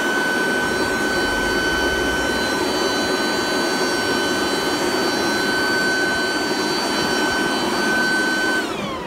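Ryobi RBV3000CESV corded electric leaf blower-vacuum running in blower mode: a steady high motor whine over the rush of air. Near the end it is switched off and the whine falls away as the motor winds down.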